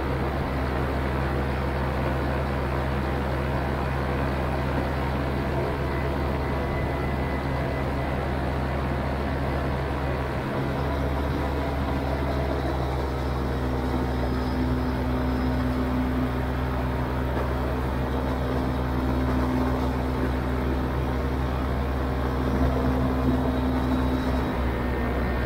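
Vittorazi Atom 80 single-cylinder two-stroke paramotor engine driving its propeller in cruising flight: a steady drone that holds its pitch throughout, growing a little stronger past the midpoint.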